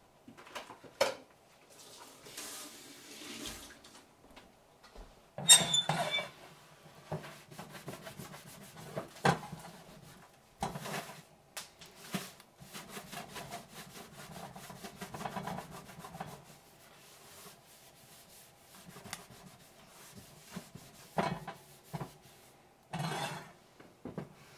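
Cast iron skillet being wiped out by hand, a cloth rubbing and scraping over the pan's surface, with several sharp knocks in between, the loudest about five seconds in.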